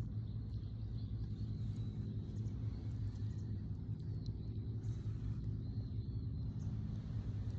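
Steady low engine rumble with an even hum.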